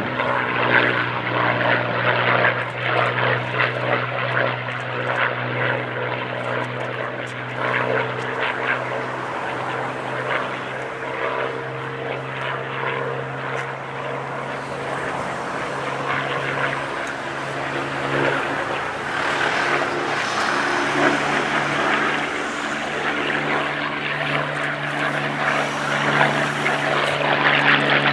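Hawker Hurricane's Rolls-Royce Merlin V12 engine and propeller droning steadily as the fighter flies a display pass overhead; the engine note rises in pitch about two-thirds of the way through.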